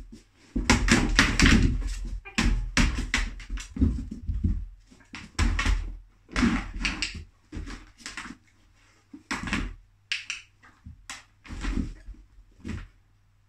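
Clear plastic storage box knocked and shoved about by a dog nosing into it: irregular hollow plastic knocks and clatters, the heaviest burst in the first couple of seconds, then scattered single knocks.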